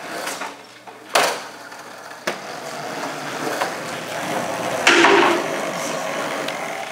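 Skateboard wheels rolling over a smooth floor, with two sharp board knocks about one and two seconds in and a louder stretch of rolling noise about five seconds in.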